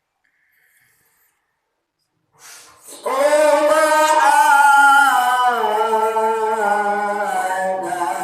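A man's voice chanting one long, wavering melodic phrase in the style of Quran recitation. It comes in about three seconds in, after a quick intake of breath, and holds on past the end.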